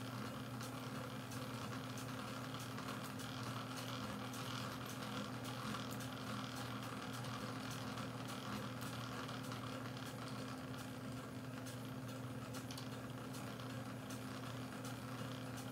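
Small mid-1800s horizontal steam engine with a governor-controlled rotary valve running steadily: a low, even hum with faint, irregular light ticks.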